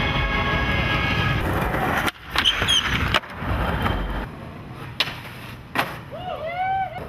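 Skateboard wheels rolling on rough concrete, broken by several sharp clacks of the board hitting the ground. A brief warbling chirp comes near the end.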